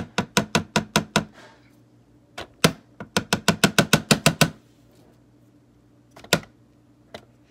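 Rapid sharp tapping, about five or six taps a second, in two runs with a few single taps after: a nearly empty makeup container being knocked to get the last product out.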